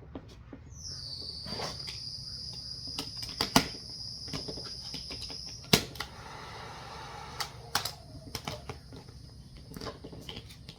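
Vinyl wrap film being worked and smoothed by hand: irregular sharp clicks and crackles, two of them loud. Over them runs a steady high-pitched whistle from about a second in until around the middle.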